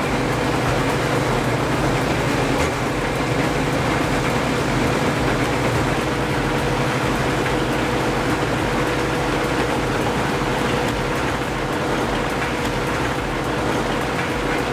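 Heavy machinery engine running steadily under load, with a constant whine held at one pitch throughout.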